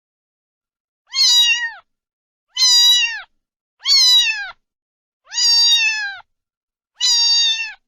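Domestic cat meowing five times, about a second and a half apart, each meow dropping in pitch at the end.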